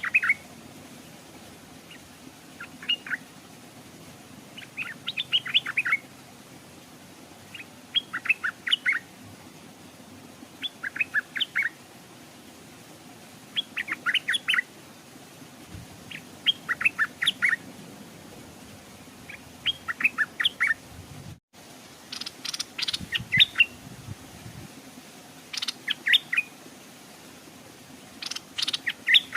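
Stripe-throated bulbul singing: short bursts of quick, bright notes, repeated every two to three seconds. A split-second gap comes about two-thirds through, and the phrases after it are louder.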